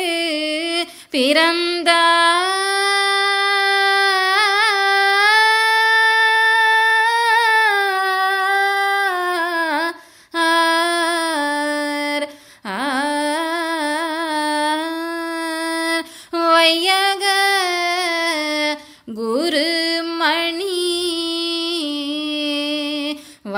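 A high solo voice sings a Tamil devotional verse, unaccompanied, stretching each word over long held notes with wavering ornaments and pausing briefly for breath between phrases.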